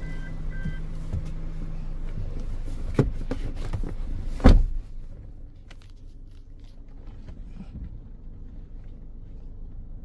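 Suzuki Jimny door shutting with a heavy thump about four and a half seconds in, after which the low background hum is quieter. A lighter click comes about a second and a half before it.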